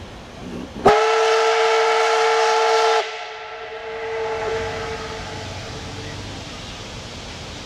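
Whistle of the Soviet L-class 2-10-0 steam locomotive L-3095, sounding one blast of about two seconds: a steady chord-like tone that starts and cuts off sharply. A fainter tone lingers for a couple of seconds after the cut-off.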